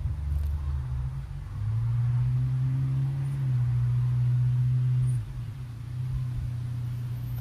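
A motor vehicle's engine drones steadily nearby, swelling louder for a few seconds in the middle and then dropping back suddenly at about five seconds.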